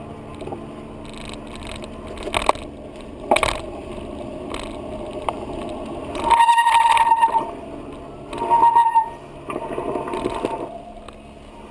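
Riding noise picked up by a bike-mounted camera: a steady rumble with rattles and a few sharp knocks. Twice, about six and eight and a half seconds in, a loud high squeal sounds briefly.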